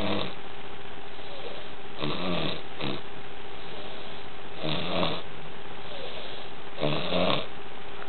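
Snoring in a regular rhythm, one snore about every two to two and a half seconds, over a faint steady hum.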